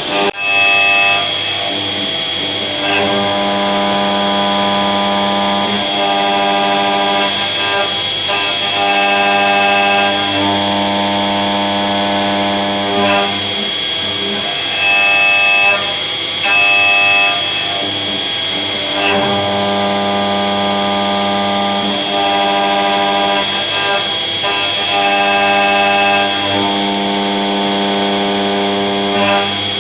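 Background music of sustained chords that change every couple of seconds, with a steady high tone running under it.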